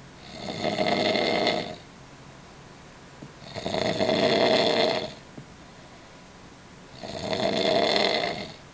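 A person snoring: three long snores about three and a half seconds apart, each lasting around a second and a half, with quiet between them.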